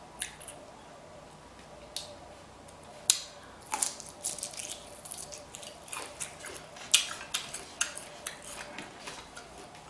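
Close-up eating sounds of a seafood boil: scattered sharp clicks and crackles of crab-leg shell being handled and broken, with wet squishy chewing. The clicks come only now and then at first and grow busier from about three seconds in.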